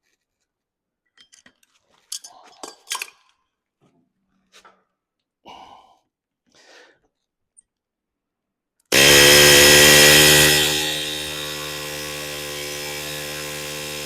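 A few light metal clanks, then a pneumatic rivet gun hammers a hot rivet into a steering-shaft U-joint. This is a fast buzzing rattle that starts suddenly about nine seconds in, is loudest for the first second and a half, then runs steadier until it stops near the end.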